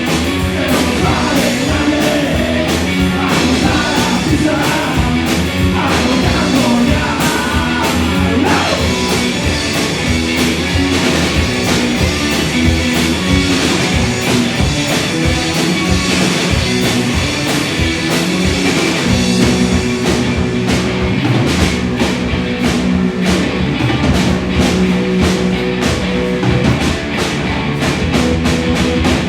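Four-piece rock and roll band playing loudly: electric guitars, bass guitar and drum kit.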